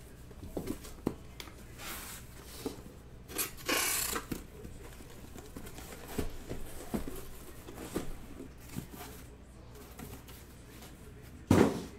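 Cardboard shipping case being opened by hand: flaps scraping and rustling, with scattered knocks and a longer scratchy tearing stretch a few seconds in. A loud thump near the end as the cardboard is handled.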